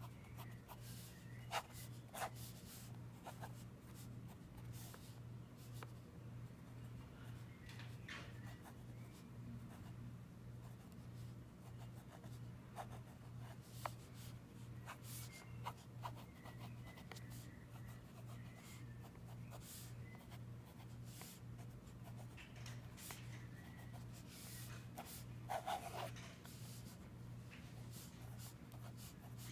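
Pen scratching across sketchbook paper in short drawing strokes, with a few louder ticks, over a low, evenly pulsing hum.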